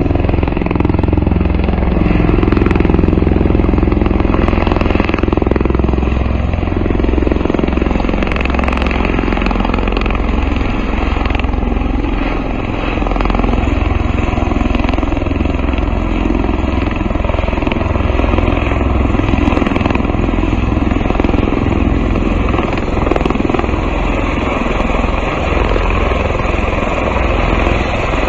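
Two Bell Boeing MV-22B Osprey tiltrotors flying low past with their nacelles tilted up: a loud, steady beat of the big proprotors over the drone of their turboshaft engines.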